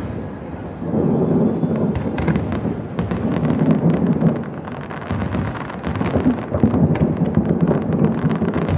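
Aerial fireworks shells bursting in a steady run of deep booms that rumble on like thunder, surging several times, with sharp crackles scattered through.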